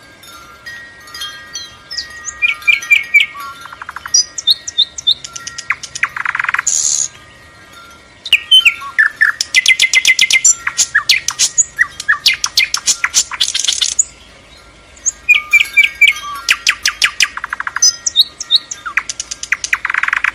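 Songbirds chirping and singing in phrases of quick, high repeated notes and rapid trills, broken by short pauses twice.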